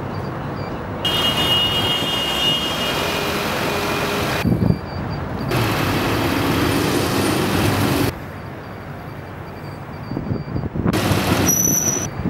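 Outdoor location sound from spliced clips, changing abruptly every few seconds: steady city traffic and heavy-vehicle engine noise, including the running engine of a truck-mounted mobile crane.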